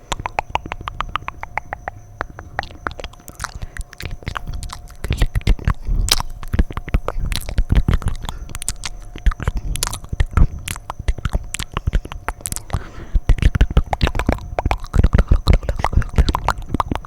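Fast, wet mouth sounds close to the microphone: a dense run of rapid tongue and lip clicks and smacks, growing louder about five seconds in and again near the end.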